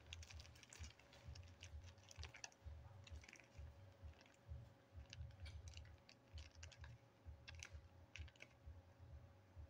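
Faint, irregular crinkling and clicking of a plastic zip-top bag being squeezed while sticky blue slime is scraped out of it with a plastic spoon, over a faint steady hum.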